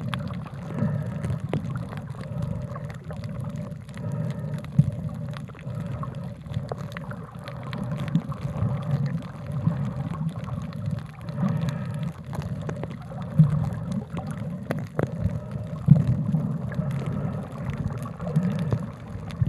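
Water gurgling and sloshing, with many scattered sharp clicks and a faint steady hum underneath.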